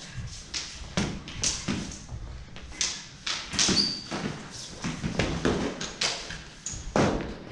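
Sword-and-dagger sparring: feet thudding on a hard floor and blades knocking together in a quick, irregular run of knocks and taps, one with a short high ring just before four seconds in.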